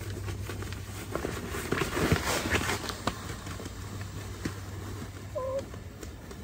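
Rustling of a pillow and bedding being handled, loudest about two seconds in, with a few light clicks. Near the end a small dog gives one brief falling whine, begging for food.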